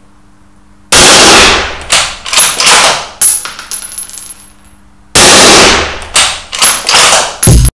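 Two shots from a suppressed bolt-action centrefire rifle, about four seconds apart, each followed by a run of echoes dying away over a couple of seconds. A short low thump comes right at the end.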